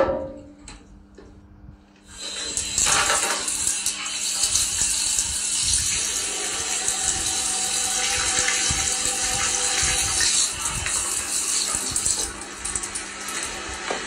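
Bathroom floor drain hissing steadily as a caustic drain opener reacts with the warm water poured onto it, starting about two seconds in, after a sharp knock at the very start.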